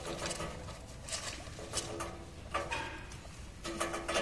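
Guinea pigs, a mother and her newborn pup, stirring in hay bedding: a few short, scattered rustles over a faint steady hum.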